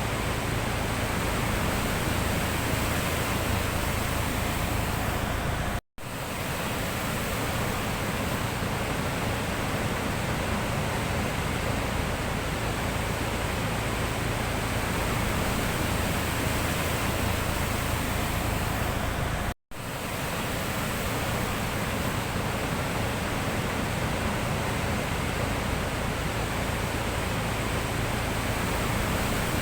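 Sea surf washing steadily in a continuous even roar. The sound cuts out for an instant twice, about six seconds and twenty seconds in.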